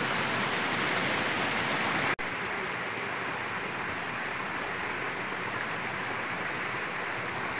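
Water of a shallow rocky stream rushing over stones and small cascades, a steady rush that breaks off for an instant about two seconds in and then carries on a little quieter.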